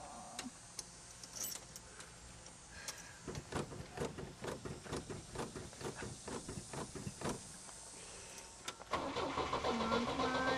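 1962 Pontiac Tempest's starter cranking the engine over without it catching: a few quiet seconds, then slow, even cranking beats at about two to three a second, turning louder and faster about nine seconds in.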